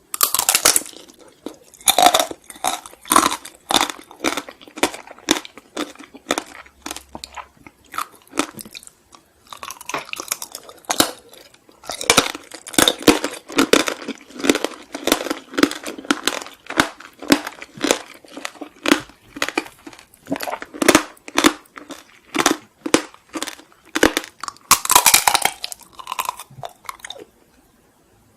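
Close-up crunchy chewing of Korean sweets, a steady run of crisp crunches about two a second. There are a few louder bites near the start and again shortly before the end, and the chewing stops just before the end.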